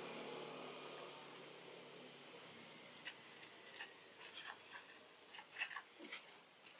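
A steady engine hum, like a passing vehicle, fades out over the first couple of seconds. After that come scattered faint clicks and ticks at irregular intervals.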